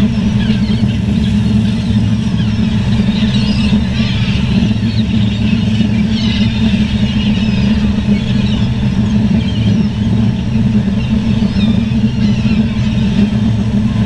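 A large colony of gulls calling, many short wavering cries overlapping, over a steady low engine drone.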